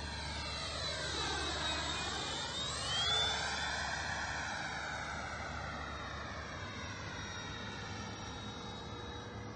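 Freewing F-86 Sabre RC jet's electric ducted fan whining in flight. The whine swells to its loudest about three seconds in as the plane passes low, then fades steadily as it climbs away.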